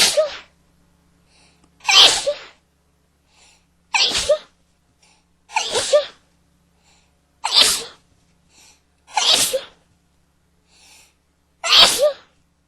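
A person sneezing in a fit: seven loud sneezes in a row, about one every two seconds, each preceded by a short, faint intake of breath.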